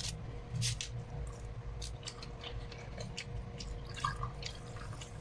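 Small clicks and smacks of eating at a table, hands and utensils on a foil tray, with cola being poured from a plastic bottle into a glass about four seconds in.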